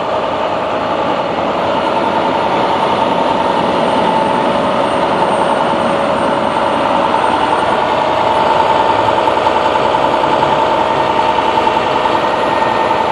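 Truck engine idling steadily close by, a continuous mechanical drone with a held hum in it.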